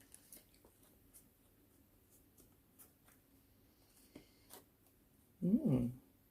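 Faint taps and slides of tarot cards being handled on a table, then near the end a brief hummed murmur from the reader.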